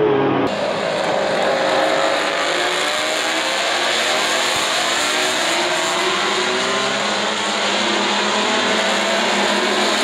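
Several MotoGP racing motorcycles running at speed on the circuit, their engine notes overlapping and rising and falling in pitch as they pass.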